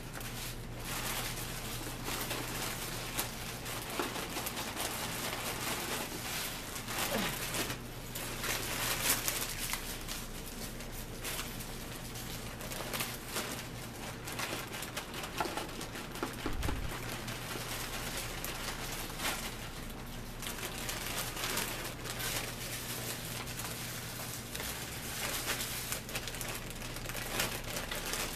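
Plastic salad bag crinkling and rustling as it is handled, with lettuce shaken out of it into a plastic bowl. A low steady hum runs underneath.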